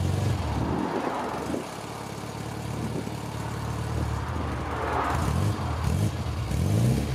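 1968 Morris Minor's A-series four-cylinder engine running at the exhaust tailpipe, mostly at idle, with the engine note rising a little a few times in the second half.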